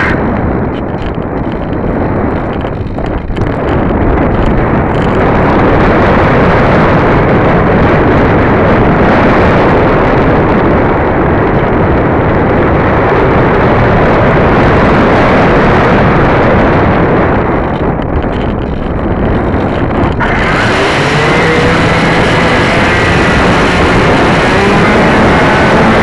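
Loud, buffeting wind noise on the microphone of a tail-mounted keychain camera on an AXN foam RC plane, with no motor whine for about twenty seconds. Then the plane's brushless electric motor and 6x5 propeller come back in with a rising whine.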